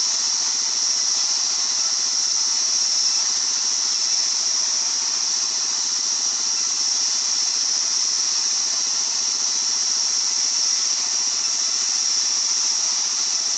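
Circular sawmill running steadily, a constant high-pitched hiss that does not change or break.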